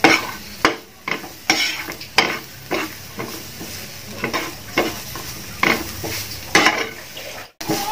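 Steel spatula scraping and stirring chopped onions, green chillies and ginger frying in oil in a frying pan: a steady sizzle with a scrape against the pan roughly once a second.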